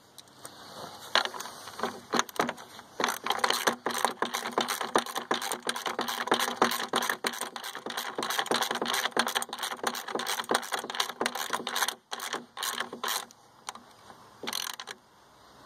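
Hand wrench tightening a nylon locking nut onto a bolt: a long run of fast metallic clicks that stops near the end.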